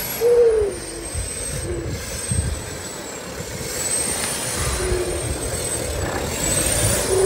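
Off-road 4x4 working slowly over an obstacle, its engine rumbling unevenly. A thin high whine wavers up and down, and short falling squeaks come about half a second in, near five seconds and near the end, the first the loudest.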